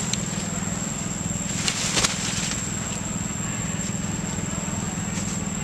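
A steady low motor hum with a fine even pulse, under a thin high steady whine. About two seconds in come a few sharp crackles of dry leaves as young long-tailed macaques scuffle on the forest floor.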